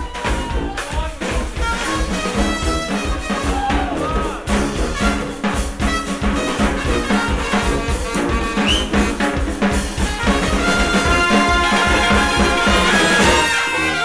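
Live brass band music: trumpets and trombone playing over a steady drum beat with a thudding bass drum.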